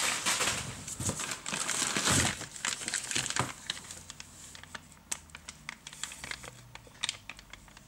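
Brown packing paper and plastic wrapping crinkling as they are handled and pulled out of a cardboard box. Dense and loud for the first three seconds or so, then thinning to scattered light crackles.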